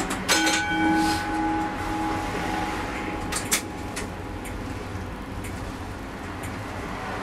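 Comeng A-class tram heard from the driver's cab: a clunk just after the start, then a steady whine with a pulsing low tone for a couple of seconds over the rumble of the tram. Two sharp clicks come about three and a half seconds in.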